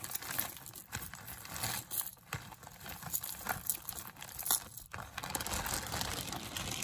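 A tangled handful of costume jewelry being pulled apart and sorted by hand: small metal pieces clink and rustle against each other in many quick irregular clicks.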